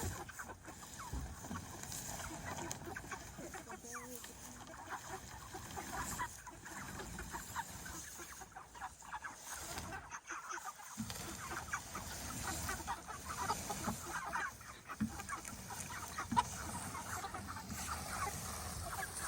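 A flock of broiler chickens clucking and chattering continuously.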